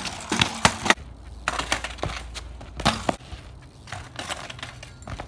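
A BMX bike and its rider crashing onto concrete: a quick string of sharp clattering knocks and scrapes in the first three seconds, then fainter scattered knocks.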